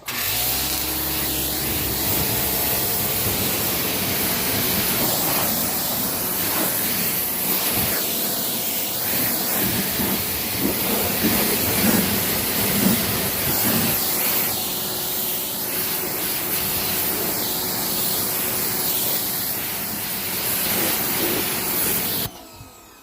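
Greenworks 2000 psi electric pressure washer spraying a car down: a steady, loud hiss of the high-pressure water jet, which starts at once and cuts off suddenly near the end.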